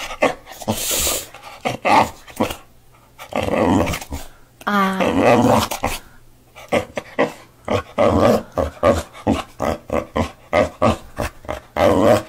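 Boxer dog "talking": a string of short, grumbling, growl-like vocalizations in reply to its owner. There is a longer wavering, pitched moan about five seconds in and another near the end, with a quick run of short grumbles between them.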